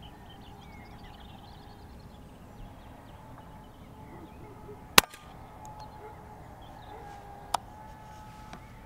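A single sharp crack about five seconds in from a pre-charged pneumatic air rifle firing, a shot that hits and kills a rabbit; a smaller sharp click follows about two and a half seconds later. Faint birdsong runs underneath.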